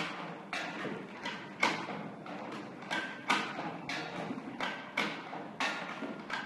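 An egg breaking and yolk-white separating machine running: its turning carousel of egg-cracking arms makes a sharp clack about every 1.7 seconds, with lighter clacks in between.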